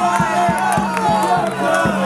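Music: many voices singing a chant over a fast, steady drum beat of about four beats a second.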